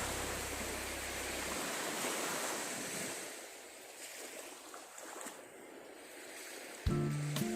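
Sea waves washing ashore, heard as a steady rushing with wind on the microphone. Background music holds a low note that ends about a second and a half in and starts again near the end.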